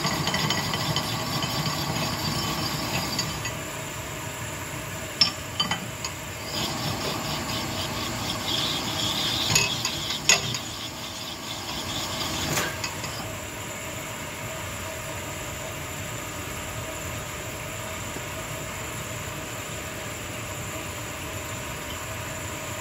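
Connecting-rod honing machine running, its stone rasping as a 283 Chevy rod's big end is honed on the mandrel, with a few sharp metallic clicks. The rasping stops about 13 seconds in, leaving only the steady running of the machine.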